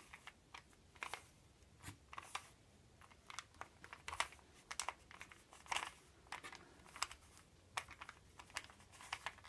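Rubik's cube being turned by hand: a run of faint, irregular plastic clicks and clacks as its layers are rotated.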